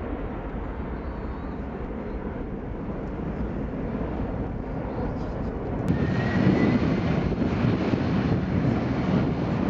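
Boeing 767-300 jet engines at takeoff power, a steady deep rumble as the airliner climbs away. About six seconds in the sound changes abruptly to louder, closer jet noise with a faint rising whine, as a second 767-300 rolls down the runway.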